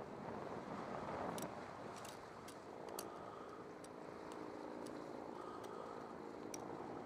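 Harbour background: a steady low rumble with an engine hum that comes in about three seconds in and holds for a few seconds, and a few faint sharp clicks.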